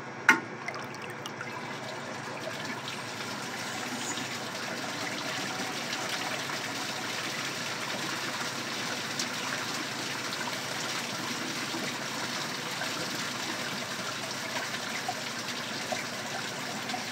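Vintage Kohler Pompton lowboy toilet flushing: a short click, then a steady rush of water swirling around the bowl. The flush is weak and does not clean the bowl out, and the owner thinks there could be something lodged up in the neck of the toilet.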